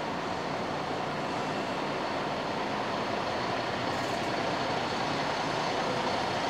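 MAN coach driving slowly on a factory floor, its diesel engine running with a steady noise that grows slightly louder toward the end.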